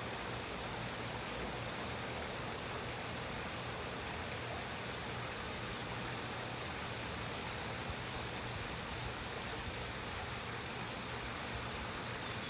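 Steady rush of water flowing through a landscaped, rock-lined stream, with a low steady hum underneath.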